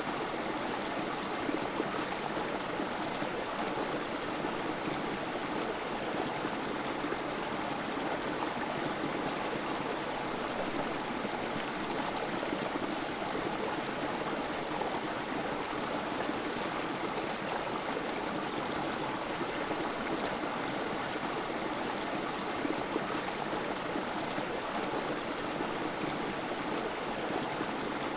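Creek water running and trickling over rocks in a small cascade, a steady, even rushing and burbling.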